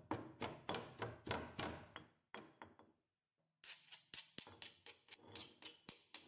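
Stone pestle pounding chilies, garlic and sugar in a stone mortar, about three dull strokes a second, fading out about halfway through. After a short gap comes a metal spoon clicking and scraping against the stone as it works the pounded paste.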